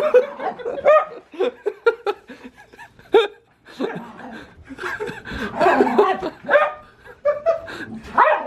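People laughing in short bursts, with a husky puppy's yips mixed in.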